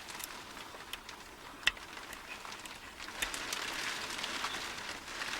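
Small metallic clicks and scratching of a pick working the pins of a tubular cam lock, with one sharper click a couple of seconds in; from about halfway the scratching grows into a steadier rustle.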